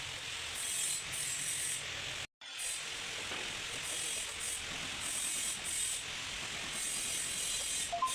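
Ratchet wrench being worked, clicking in short irregular bursts, with a brief break about two seconds in.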